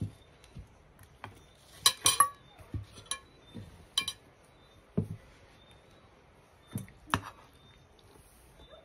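Plates and a serving fork clinking and knocking as food is served at a table: a dozen or so separate taps and clicks, the loudest a quick cluster about two seconds in and another about seven seconds in.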